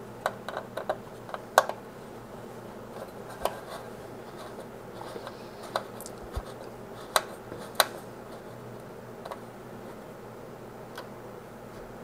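Small metallic clicks and taps of a mini screwdriver and a tiny M.2 screw as an M.2 SSD is seated and screwed down onto a motherboard, irregular and scattered, over a low steady hum.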